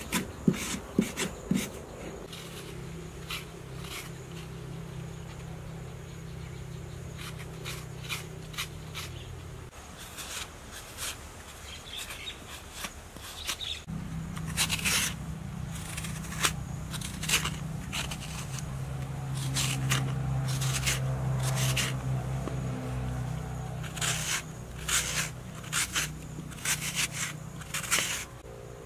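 A hand scraper raking young coconut flesh out of the shell half in short, irregular strokes. The strokes are sparse at first and come in quick runs in the second half. A low steady hum sounds underneath, breaking off for a few seconds in the middle.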